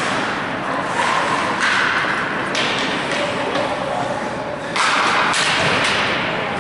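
Rink noise during ice hockey play: a wash of skate and crowd noise with voices calling out, and sharp knocks of stick and puck, the loudest rise about five seconds in.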